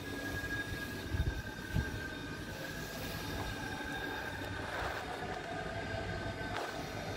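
Steady mechanical rumble with a faint high whine that slowly sinks in pitch, and two low thumps about a second in.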